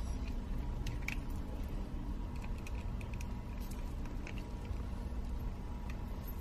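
Quiet room tone with scattered faint clicks and rustles from hands handling a curling iron and the hair wound around it.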